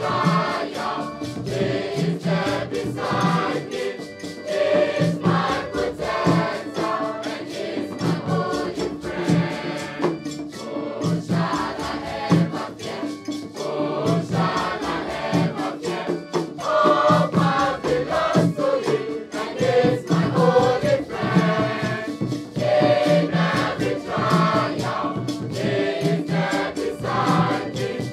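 Mixed-voice school choir of girls and boys singing, accompanied by a hand drum beaten in a steady rhythm.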